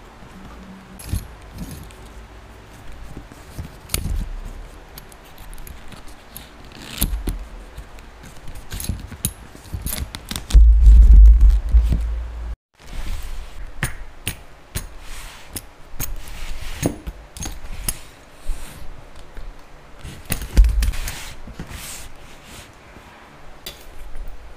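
Leather straps being handled and a brass buckle clinking, with scattered small clicks and scrapes. A loud low rumble lasts about two seconds near the middle and then cuts off suddenly.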